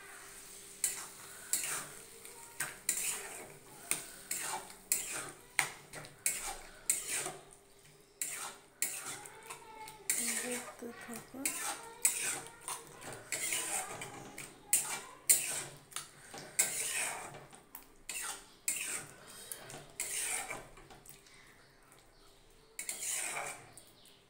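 Spatula scraping and knocking against the sides and bottom of a metal kadai while stirring a thick dal tarka, in irregular strokes about one to two a second.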